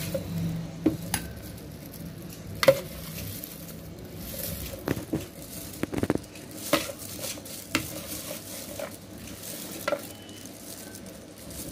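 Metal spoon stirring ghee-roasted cashews and raisins in a glass bowl, clicking and knocking against the glass at irregular moments.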